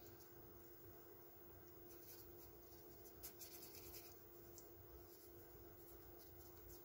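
Near silence: faint, brief scrapes and ticks of a small metal spatula handling quick-setting glue on a speaker rim, over a faint steady hum.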